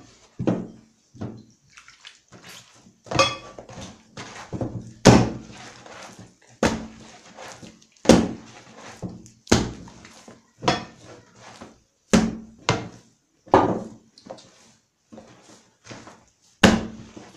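Brioche dough being kneaded by hand in a wooden bowl: a steady run of soft thuds, about one or two a second, as the dough is pressed and slapped down against the wood.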